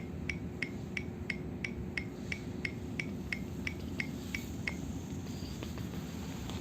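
Quiet, steady low hum of a Munich U-Bahn train at the platform, with a run of short, evenly spaced high beeping ticks, about three a second, that stop about five seconds in.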